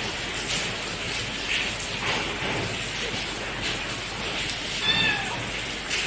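A kitten gives one short, high mew about five seconds in, over a steady hiss.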